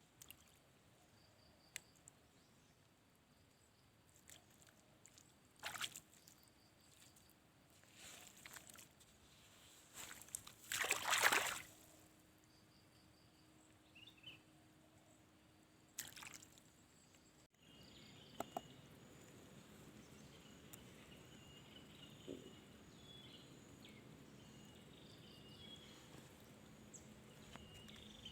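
Faint water sloshing and splashing in scattered short bursts, the loudest about eleven seconds in. After an abrupt cut comes a steady outdoor hiss with insects chirping.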